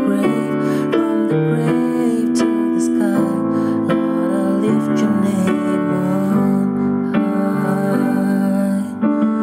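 Yamaha electronic keyboard played with both hands in a piano-like voice: held chords that change every half second or so, with a melody line above them.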